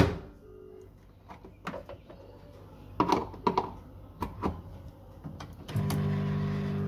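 Microwave oven being shut and set: a sharp click, a few knocks and presses, then the oven starts about six seconds in with a steady hum.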